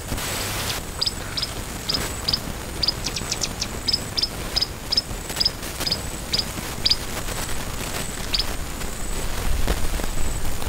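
A bird giving short high chirps in a quick, uneven series, about two a second, over a steady outdoor rustle and hiss. A short rustling burst comes right at the start, where an African elephant is pulling up grass with its trunk.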